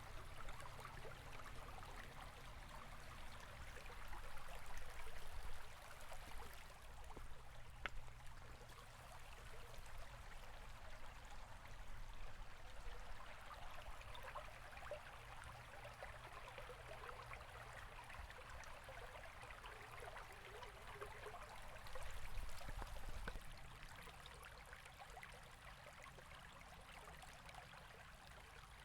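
River water flowing and babbling steadily, with a low rumble underneath that swells twice, about four seconds in and again about two-thirds of the way through.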